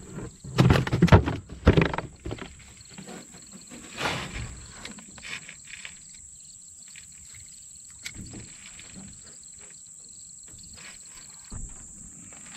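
Steady high-pitched drone of an insect chorus. Several loud, short sounds fall in the first two seconds, with a smaller one about four seconds in.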